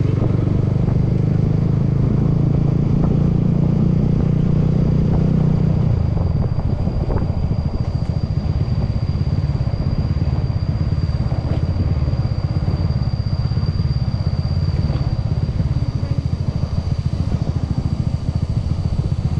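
Honda scooter's single-cylinder engine running steadily as it is ridden along, with road and wind noise. The low engine note eases a little about six seconds in, and a thin, steady high-pitched whine holds from then on.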